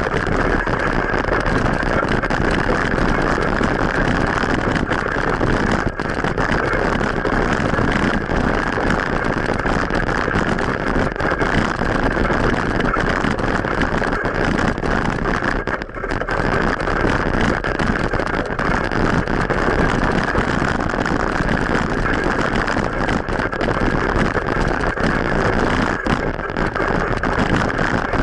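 Steady wind and road noise of a bicycle ride picked up by an action camera, with motor traffic mixed in; the noise dips briefly about halfway through.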